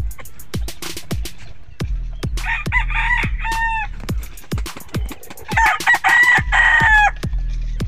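A rooster crowing twice, about two seconds in and again about five and a half seconds in, each crow a long drawn-out call. Background music with a steady beat runs underneath.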